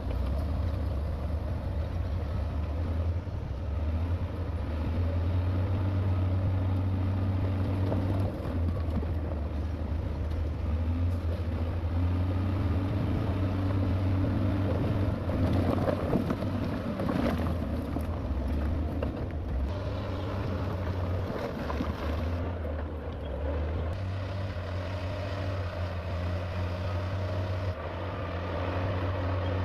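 Heavy diesel engines of earthmoving machinery running steadily with a deep hum, and a rougher, noisier stretch about halfway through.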